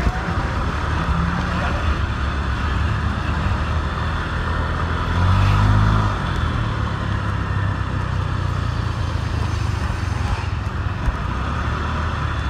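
Motor scooter engine running steadily while riding in town traffic, with road noise. About five seconds in the engine note swells louder and its pitch rises and falls again for about a second, as on a burst of throttle.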